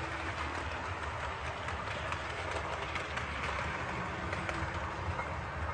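OO gauge model train running along the layout track: a steady running rumble with light clicks of the wheels over the track.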